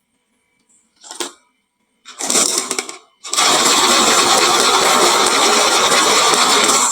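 Marbles rolling and clattering down a wooden marble run: a short rattle about a second in, a longer one at about two seconds, then a dense continuous rattle of many marbles from about three seconds in that cuts off suddenly.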